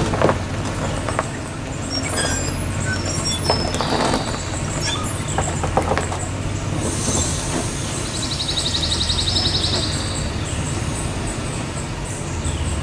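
Toyota Tundra pickup's engine running slowly as the truck rolls onto the sidewall of a trailer tire, trying to break the bead. Short knocks and high squeaks come from the tire under load. A rapid high ticking lasts a second or two about two-thirds through.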